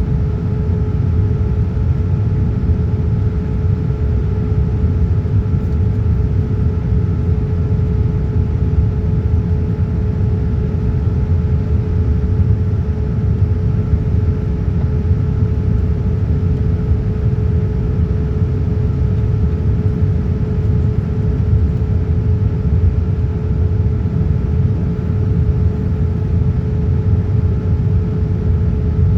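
Boeing 787-9 cabin noise from inside the passenger cabin: a steady low rumble of the GEnx jet engines and airflow, with a few steady hums over it, unchanging throughout.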